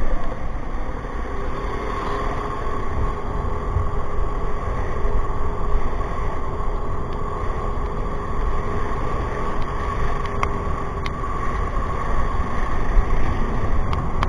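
Motor scooter's engine running steadily while riding, with continuous road and wind noise and a faint steady hum.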